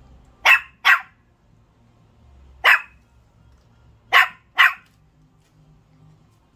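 Small puppy barking: five short, high-pitched barks in a pattern of two, then one, then two more.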